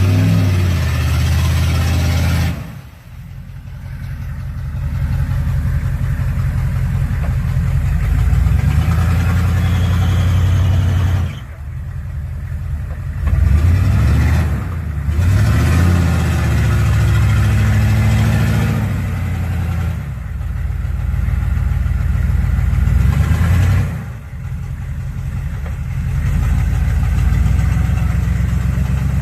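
Hummer engine revving hard under load and straining to climb out of a deep mud hole, its pitch rising and falling. It backs off sharply about three times, then builds again.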